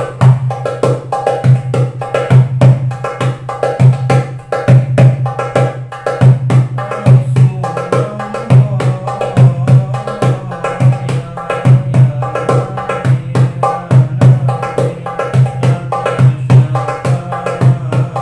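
Cast-aluminium darbuka, about 8¾ inch, played by hand in a fast, steady rhythm: deep bass strokes from the centre of the head mixed with quick, sharp strokes near the rim.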